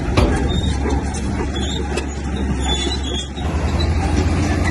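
Heavy diesel engine of earthmoving machinery running steadily under load, with a few sharp knocks; its note dips and shifts about three and a half seconds in.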